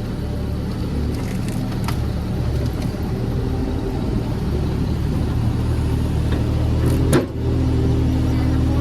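Mini excavator's diesel engine running steadily under work, with one sharp knock about seven seconds in.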